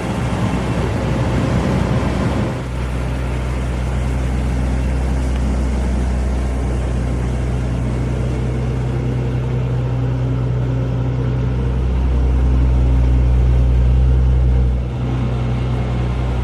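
Mercedes-Benz S65 AMG's 6.0-litre V12 biturbo engine idling, a steady low hum. It grows fuller about two and a half seconds in and dips briefly near the end.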